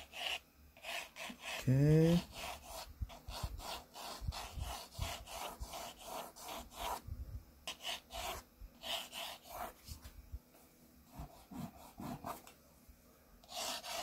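Graphite pencil drawing lines on paper: short scratchy strokes, several a second, coming in runs with a brief pause about ten seconds in.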